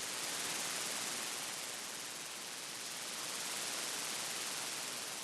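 Steady shortwave radio static and hiss on the 17629 kHz Radio Kuwait signal, during a pause in the broadcast with no programme audio.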